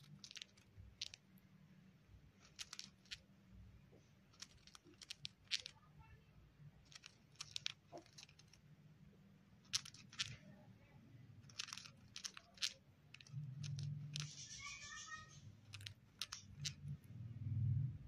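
Cockatiel grinding its beak: scattered dry clicks and crunches, the sound of a relaxed, contented bird settling down. There is a brief chirp about two-thirds of the way through.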